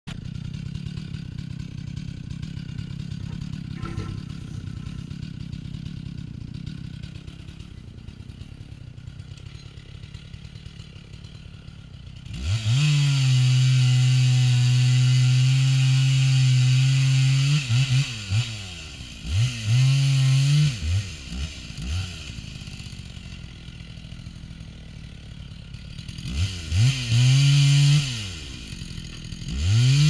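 Chainsaw cutting into a tree: after a low steady rumble, the two-stroke engine comes up to full throttle about twelve seconds in and holds a steady loaded note for about five seconds. Then it gives several short bursts of throttle, eases back, and runs hard again twice near the end.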